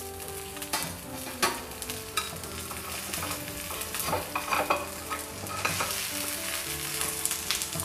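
Oil sizzling in a frying pan around potato-and-cheese pancakes. A steel spatula scrapes and taps against the pan several times as the pancakes are lifted out.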